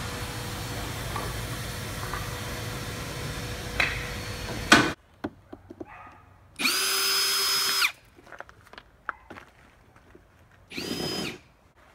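A steady background hum cuts off about five seconds in. Then a cordless drill driving a screw into a 2x4 whines up to speed, holds steady for just over a second and winds down, with a second, shorter burst near the end.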